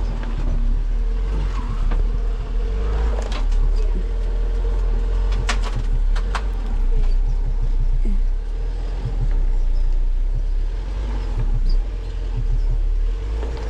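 Off-road 4x4 engine running low and steady as the vehicle crawls up a rock ledge, with a few sharp clicks about five to six seconds in.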